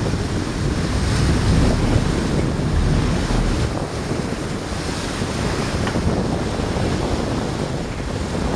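Steady wind buffeting the microphone over the wash of open-sea water alongside a sportfishing boat.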